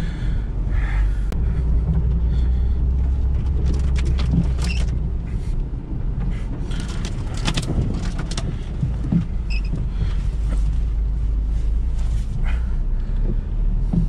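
Lada Niva Travel's 1.7-litre four-cylinder petrol engine running steadily as the car drives slowly off-road over rough forest ground, with scattered knocks and rattles.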